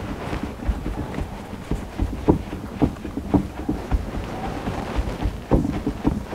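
Irregular soft thumps and pats of hands shaping and pressing bread dough on a wooden board, over a low rumble of wind on the microphone.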